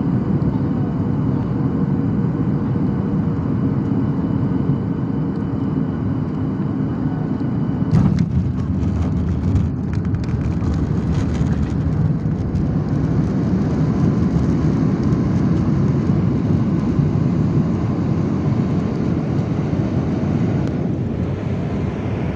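Jet airliner cabin noise heard over the wing on final approach: a steady low rumble with a faint steady tone. About eight seconds in the wheels hit the runway with a thump and a rattle, which the uploader calls a hard landing. The engine roar then builds in reverse thrust during the rollout and eases off near the end.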